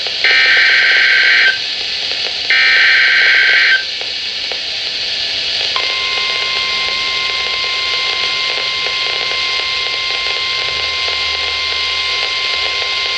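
NOAA Weather Radio alert signal over radio hiss: two bursts of warbling SAME digital header tones, each a little over a second long, then, about 6 seconds in, the steady 1050 Hz warning alarm tone starts. Together they mark the start of an Emergency Alert System warning broadcast.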